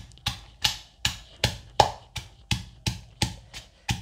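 Granite mortar and pestle pounding garlic, coriander root and chillies into a paste: a steady run of sharp stone-on-stone knocks, about three strikes a second.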